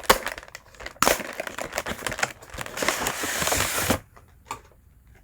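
Packaging being torn open and handled: a sharp click, then about three seconds of loud crinkling that stops abruptly, followed by a few light taps.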